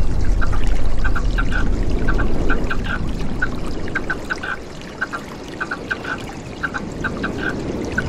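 Stream water running steadily, with a bird giving short, same-pitched calls in quick clusters of two to four throughout. A low rumble underlies the first five seconds or so.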